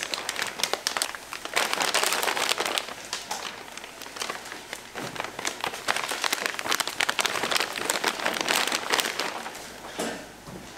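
Plastic packaging crinkling and rustling as it is handled, in a dense run of small crackles with a brief lull partway through.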